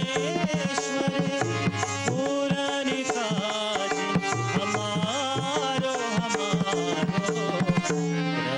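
A Hindu devotional bhajan: a man sings over sustained harmonium chords while a tabla pair plays along in a continuous rhythm.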